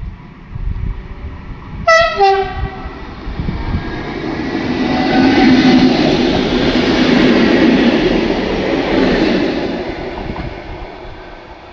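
SNCB 'AM classique' electric multiple unit sounding its horn about two seconds in, two short notes, the first higher and the second lower. It then passes close by, the noise of its wheels on the rails building to its loudest midway and fading away as it goes.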